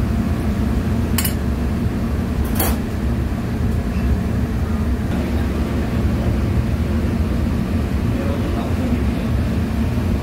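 Metal spatula clinking twice against the pan, about one second and two and a half seconds in, while squid is stir-fried. A loud, steady low rumble runs underneath.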